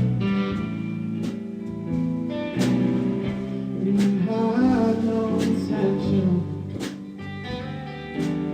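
Slow guitar song between sung lines: a guitar strummed in a steady, slow rhythm, with a wavering melody line over it midway.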